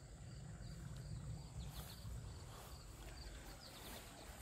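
Faint outdoor ambience of insects chirping in short calls about every half second, over a low rumble.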